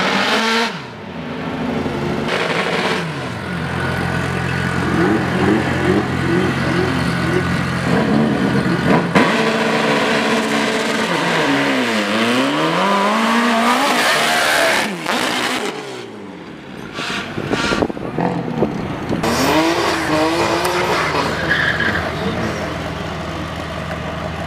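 Drag cars' engines revving at the start line, with a run of quick throttle blips, a rev that drops and climbs again, and tyres squealing through a burnout.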